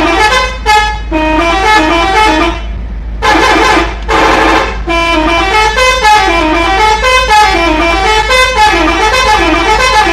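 Bus telolet horn, a multi-tone musical air horn, being played by hand: loud warbling melody phrases whose pitch swings rapidly up and down, with short breaks between phrases.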